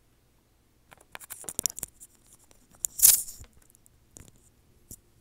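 Handling noise: a run of light clicks and rustles starting about a second in, with one louder rustling swish about three seconds in, then a few more clicks.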